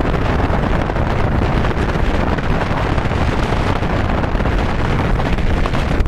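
Steady wind noise on the microphone, a loud, even rushing with no pitched lines or separate knocks.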